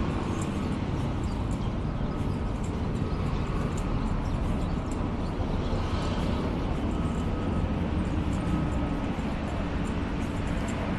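Steady outdoor street ambience: a constant low rumble and noise with no sharp events.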